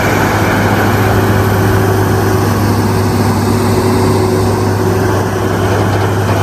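Heavy diesel engine running steadily with a deep drone, from a heavy-haul truck moving a lowboy trailer loaded with a large excavator.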